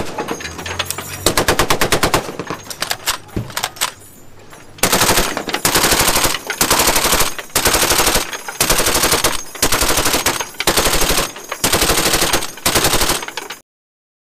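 Heavy machine gun mounted on a patrol boat firing in long bursts of rapid shots, with brief pauses between bursts and a quieter stretch about three seconds in; the firing cuts off abruptly near the end.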